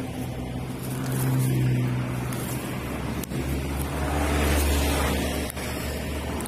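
Small four-stroke Honda GX engine of a string trimmer running, its speed rising and falling. The engine note drops lower about three seconds in.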